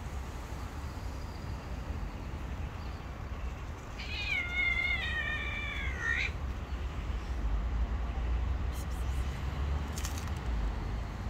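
A cat meows once, a long meow of about two seconds that dips in pitch and then rises sharply at the end.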